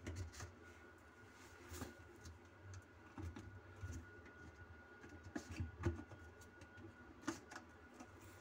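Hands twisting and handling a plastic sink drain trap at its slip-nut joint, giving faint scattered clicks and knocks of plastic, a few louder ones past the middle and near the end. A faint steady high tone runs underneath.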